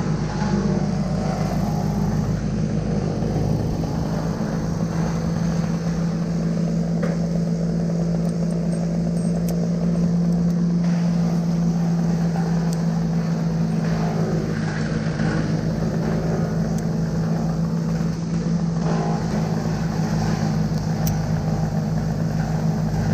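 An engine running at a steady, constant speed, with an even pitch and level throughout.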